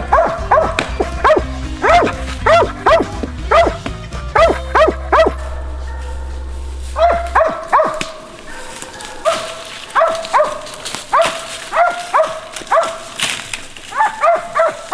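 A hunting dog barking at a tree in quick, repeated barks, about two a second, with a short pause near the middle. A low music bed plays under the first half and stops about halfway through.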